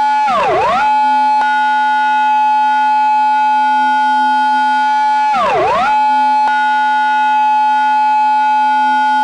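Japanese police car siren sound effect in its intersection-entry pattern: a steady high siren tone, broken twice, about five seconds apart, by a quick swoop down in pitch and straight back up.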